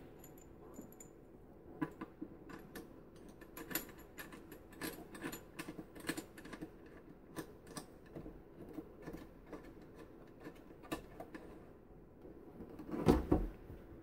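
Hands handling an MFJ-891 watt meter and its coax cable connectors: scattered small clicks and rattles, with a louder knock near the end as the meter is set in place.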